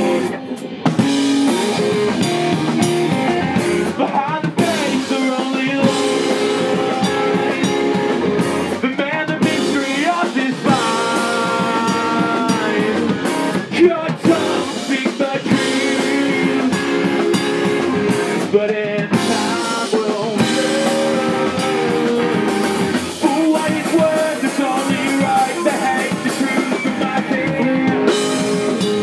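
Rock band playing a song live: guitars over a drum kit.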